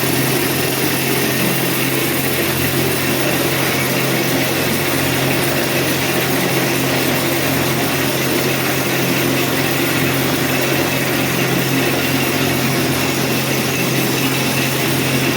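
A machine running steadily, a constant hum under an even, noisy whirr that does not change.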